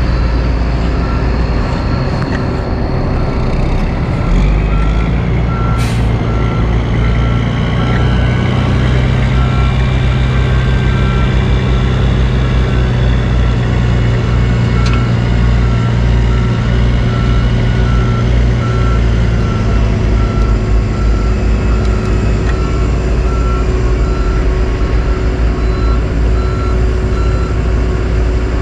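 Heavy diesel dump truck engines running, with a backup alarm beeping at a steady even rate over the rumble, as a truck reverses toward the paver. The beeping fades out in the last few seconds, and a single sharp click comes about six seconds in.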